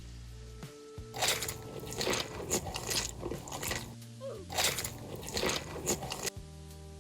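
Close-up crunching bites and chewing of crisp food, starting about a second in and going on irregularly at about one or two crunches a second, over steady background music.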